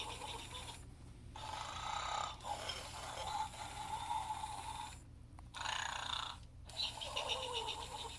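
Gund Fun Arnold animated plush pig playing its snoring sound: several snores in a row, broken by brief pauses.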